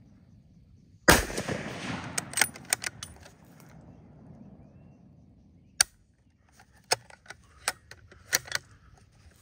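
A single shot from a Remington Model 700 bolt-action rifle in .270 Winchester about a second in, its report dying away over about two seconds. A string of sharp clicks follows, with several more near the end.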